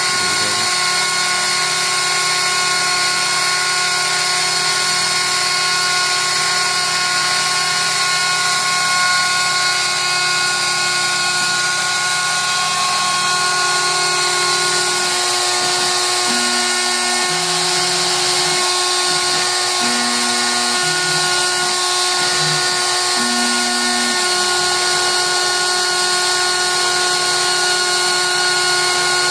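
Proxxon rotary tool running as the spindle of a CNC 3-axis router, a steady high-speed whine as the bit cuts through a plywood sheet. In the second half, short low hums that change pitch every second or so come from the router's axis motors as the gantry moves.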